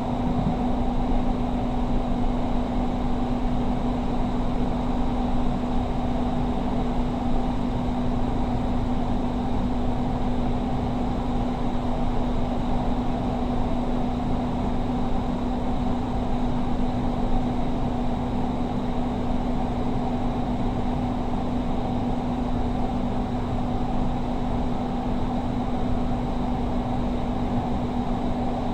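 Doha Metro train running, heard from inside the carriage: a steady rumble with a constant low hum that holds level throughout.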